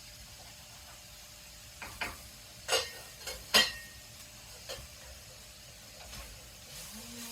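Several sharp clicks and knocks over a low steady hiss. The two loudest come about a second apart, the second leaving a brief ringing tone.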